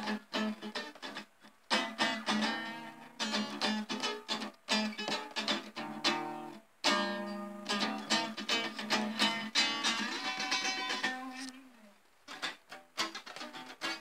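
A blues tune played on guitar.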